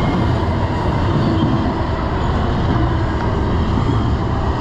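Double-stack intermodal freight train's container well cars rolling past close by: a steady, loud rumble of steel wheels on rail.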